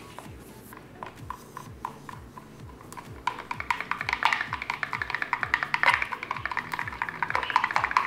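Background music with a steady drum beat. From about three seconds in, rapid scraping clicks of a spatula stirring thick soap batter against the side of a plastic pitcher.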